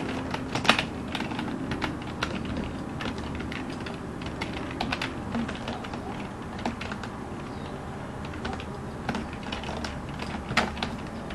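Slow typing on a computer keyboard: single keystrokes clicking one at a time, irregularly spaced, as a word is typed out letter by letter.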